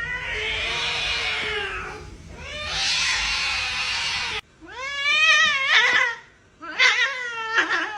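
Cats caterwauling and hissing in a hostile standoff: a long hoarse yowl, a hiss about halfway in, then two wavering yowls near the end.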